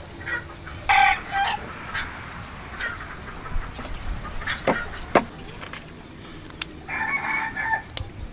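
Chickens clucking, with a rooster crowing for about a second near the end. A few sharp clicks fall in between.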